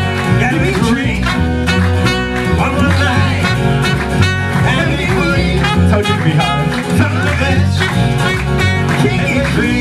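Small acoustic band playing live in a country-blues style: plucked upright double bass moving note to note under a strummed acoustic guitar, with trumpet and possibly vocal lines over the top.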